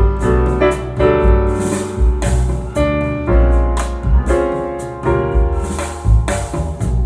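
Recorded music played through Klipsch R-51M bookshelf speakers: keyboard chords over a steady beat, with deep bass hits and cymbal strokes, no singing.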